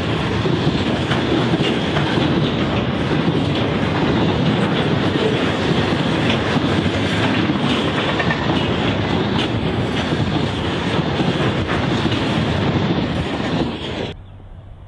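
Container wagons of a long intermodal freight train rolling past, a dense rumble with wheels clicking over the rail joints. The sound cuts off suddenly near the end.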